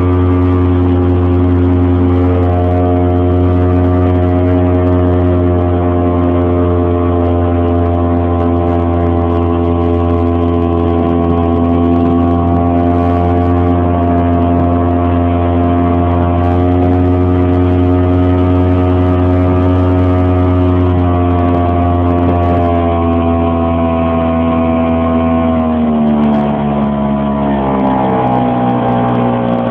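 Yamaha 5 hp single-cylinder two-stroke outboard motor running steadily at speed under load, pushing the boat along. Near the end it is throttled back and its pitch falls.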